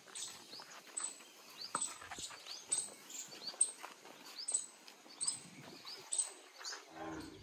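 A bird calling over and over outdoors, a short high chirp repeated a little under once a second, with a few faint clicks.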